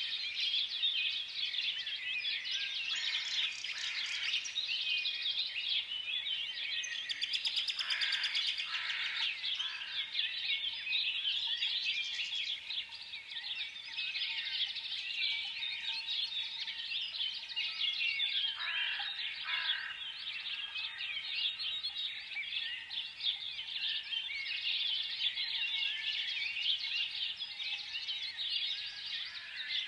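Many small birds chirping together in a dense, unbroken chorus of overlapping high chirps and tweets, with a few louder calls standing out now and then.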